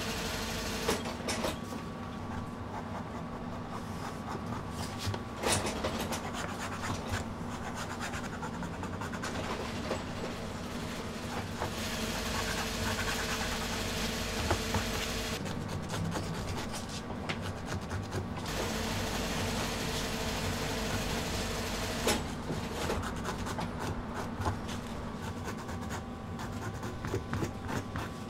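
Leather being rubbed and scraped with a hand tool and cut leather pieces shuffled on a workbench: an uneven rustling and scraping with scattered light clicks. A steady machine hum runs underneath.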